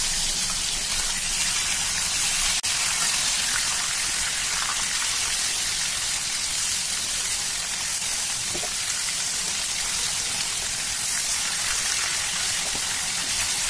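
Koi fish shallow-frying in hot mustard oil in a kadai: a steady, even sizzle.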